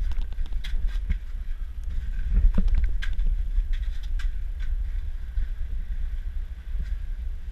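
Footsteps knocking on wooden boardwalk planks over a steady low rumble on the microphone. The rumble swells a little past two seconds in.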